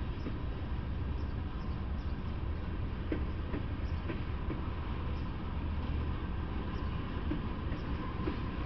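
Freight train of tank cars rolling past: a steady low rumble with scattered sharp clicks and knocks from the wheels on the rails. A faint steady whine sits above it and grows a little louder near the end.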